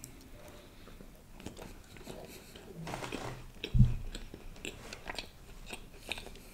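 Close-miked biting and chewing of a nut-topped chocolate brownie: a stream of small mouth clicks and crunches, with one low thump about four seconds in.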